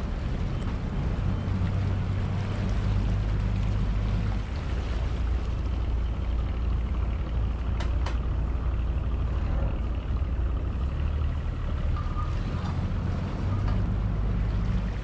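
Tour boat's engine running steadily at low speed, a deep even drone, with a hiss of water and wind over it as the boat moves.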